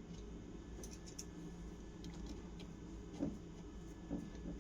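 Faint, scattered metallic clicks and ticks of a screwdriver turning and tightening small screws, over a steady low background noise.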